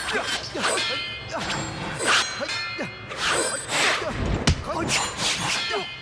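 Staged fight sound effects: metal weapons clanging and ringing in quick exchanges, with swishes of swung blows and one heavy hit about four and a half seconds in.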